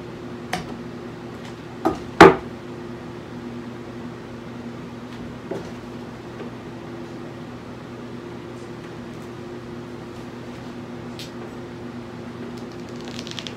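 Bowie knife stabbing and prying at the tough thermal rubber coating of a dog-training dummy on a wooden bench. A few sharp knocks ring out, the loudest just over two seconds in, over a steady low hum.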